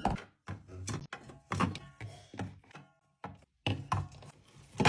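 Drink cans being set down and pushed into place on mini fridge shelves: a run of irregular knocks and thunks, some with a short metallic clink.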